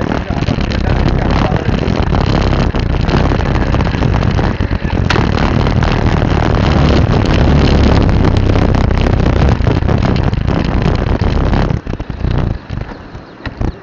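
Loud wind buffeting on a moving action camera's microphone, mixed with vehicle and road noise as it rides along the road. It drops away sharply near the end.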